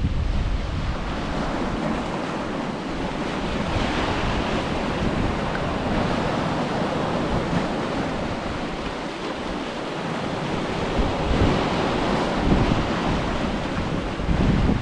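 Ocean surf washing in on a beach, swelling and easing, with wind buffeting the microphone.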